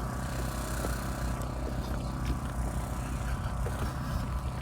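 Steady low hum of an engine running at idle, even and unchanging, with no cutting or revving.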